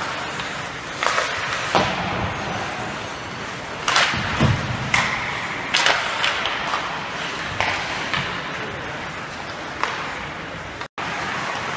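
Ice hockey play in an indoor rink: sharp cracks and thuds of sticks and puck on the ice and boards, about eight over the stretch, over a steady rink background hum. The sound cuts out for an instant near the end.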